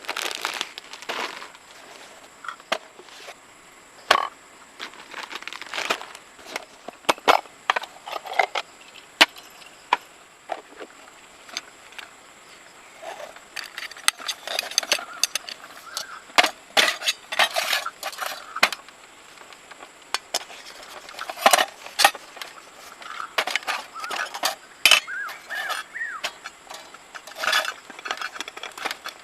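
Irregular clicks, knocks and light clinks with rustling in between, as of small camp gear being handled, over a faint steady high-pitched tone.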